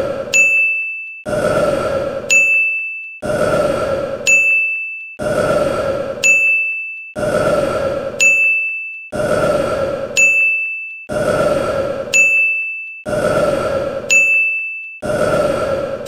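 A man's recorded burp looped about every two seconds, each burp followed by a bright sparkle-ding sound effect, alternating about eight times each.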